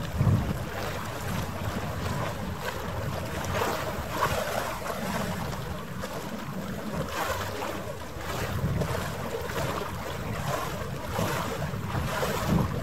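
Wind buffeting the microphone over the wash of harbour water, a gusty rumble with no steady engine note.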